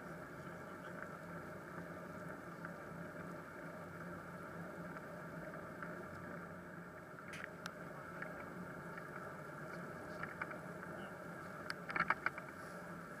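Steady rolling noise of a bicycle riding on a wet asphalt cycle path, picked up by a bike-mounted camera. There are a few sharp clicks or rattles about seven seconds in, and a louder cluster near the end.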